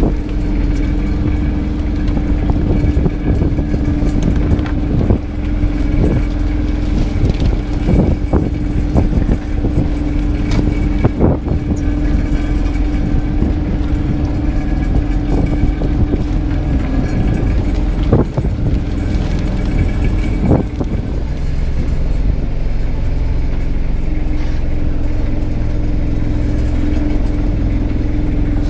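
Fishing boat's engine running steadily in a low drone, with scattered knocks and rattles from crab traps being handled on deck, which die away about two-thirds of the way through.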